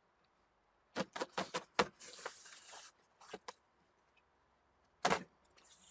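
Knife cutting open a tape-wrapped cardboard box: a run of taps and clicks about a second in, a short scratchy hiss of the blade through tape, a few more taps, then a sharper knock about five seconds in.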